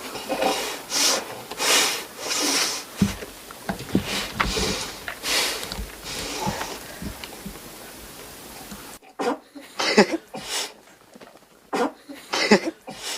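Foley eating performance into a close microphone: a boy huffing and sniffing in heavy, animal-like breaths, about one a second, while chewing and smacking on pizza. The breaths get sharper and more separate near the end.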